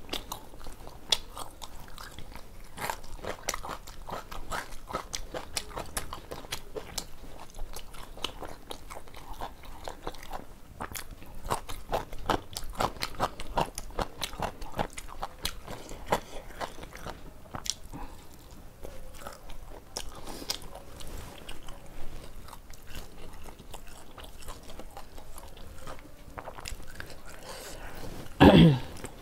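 Close-miked chewing and biting of food eaten by hand, with crisp crunches of raw cucumber and onion among the softer sounds of roti and curry. Near the end comes one brief, louder sound that falls in pitch.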